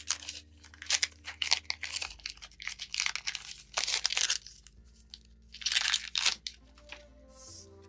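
Foil wrapper of a Pokémon card booster pack crinkling and tearing as it is opened, in many short crackling bursts.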